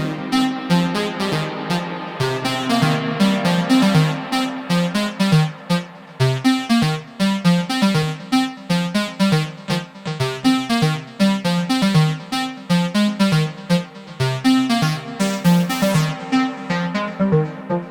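IK Multimedia Uno Synth Pro X analog synthesizer playing a fast sequenced pattern of short, plucky notes over a repeating bass line. The sound turns duller near the end.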